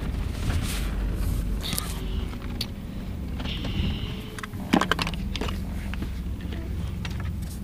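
Steady low rumble of a car heard from inside the cabin, with scattered rustling and clicks and one sharp knock a little under five seconds in.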